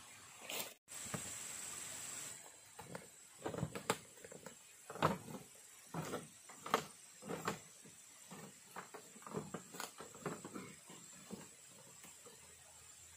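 A run of irregular knocks and thuds, loudest from about four to seven seconds in, over a faint steady high whine. There is a brief dropout about a second in.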